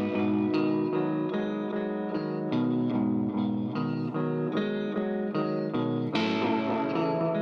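Electric guitar played through an analog delay pedal: a run of single picked notes trailed by their echoes, with a strummed chord about six seconds in.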